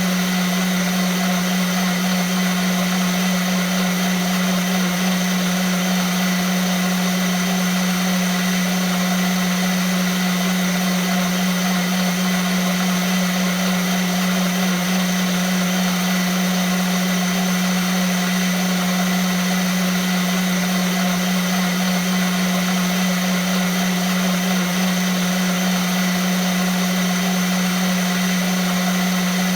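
Vitamix blender motor running steadily at constant speed, a strong low hum under a dense high-speed whir, with no change in pitch or level.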